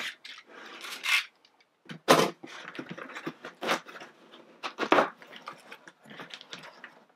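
Cardboard shipping box being opened by hand: flaps scraping and paper rustling, with a couple of sharper knocks about two and five seconds in.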